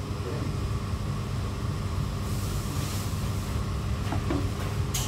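Steady low rumble of restaurant room noise, with a brief rustling hiss a couple of seconds in and a sharp click near the end.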